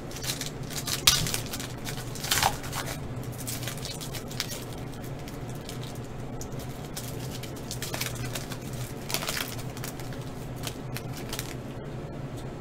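A foil trading-card pack being torn open and crinkled by hand, with irregular crackles, the sharpest about one and two and a half seconds in, then the cards being slid out and handled, over a steady low hum.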